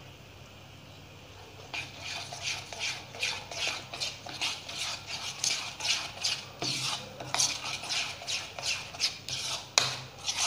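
A metal spoon stirring thick neyyappam batter of coarsely ground rice and jaggery in a ceramic bowl, scraping against the bowl in rapid even strokes, about three a second, starting about two seconds in.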